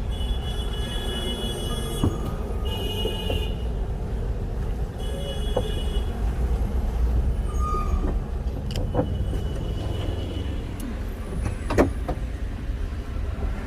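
A motor vehicle running with a steady low rumble amid road traffic, with a few short high-pitched tones and several sharp knocks.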